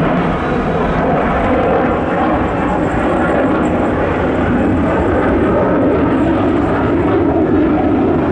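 Sukhoi Su-35 fighter jet in flight, its twin afterburning turbofan engines making a loud, steady jet noise.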